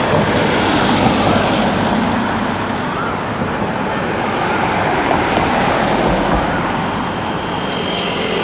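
Steady road traffic noise: vehicles running along a street.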